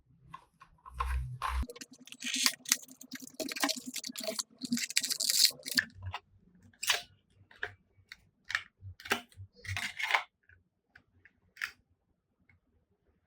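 Handling noise from unboxing a small SSD: packaging rustling with a string of sharp plastic clicks and taps, stopping about ten seconds in.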